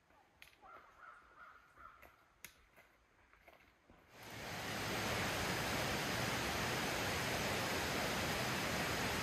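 A few faint clicks at first, then about four seconds in a loud, steady rushing noise sets in and holds evenly.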